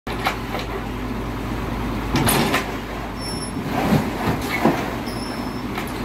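Mini excavator's engine running steadily while its demolition grapple handles debris over a truck bed, with several crunches and knocks from the debris around two and four seconds in. Two brief high squeaks are heard, one in the middle and one near the end.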